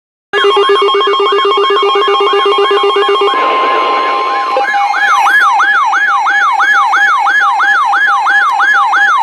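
Weather radio receivers sounding their electronic alert alarms: a loud warbling siren tone that sweeps up and down about three times a second over steady beeping tones. About five seconds in, a stronger, wider warble takes over. The alarm signals an incoming emergency weather alert.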